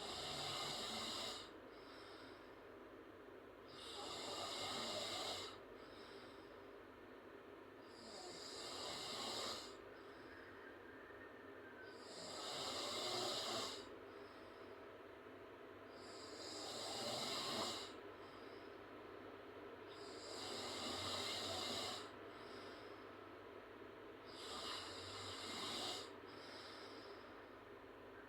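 A girl snoring loudly through an open mouth, with a snore about every four seconds, each followed by a short, softer breath.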